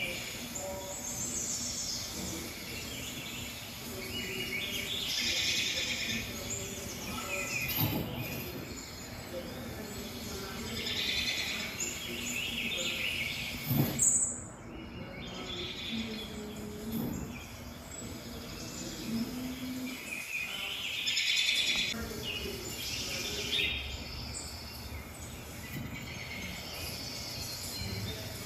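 Songbirds chirping and singing in short spells every few seconds, played from a bird video through a TV's speakers. A single sharp knock comes about halfway through.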